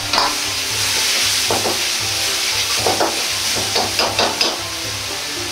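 Liver, garlic chives and bean sprouts sizzling in a wok over high heat, with a steady hiss throughout. A metal ladle scrapes and clinks against the wok as it stirs, in several short clusters, most often near the end. A steady low hum runs underneath.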